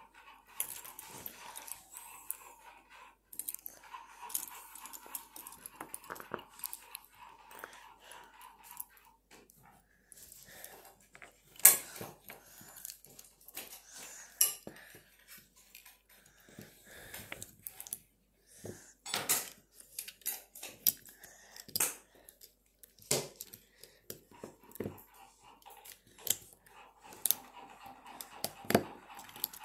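Plastic LEGO bricks clicking and clattering as they are picked from a pile of loose pieces and pressed together by hand: irregular sharp clicks, the loudest about twelve seconds in.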